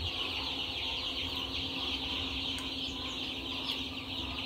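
A brooder full of five-day-old broiler breeder chicks peeping continuously, a dense chorus of many short high chirps. A steady low hum runs underneath.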